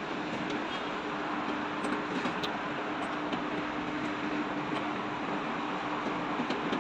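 Steady machinery hum and rush with a constant low tone, with a few light clicks.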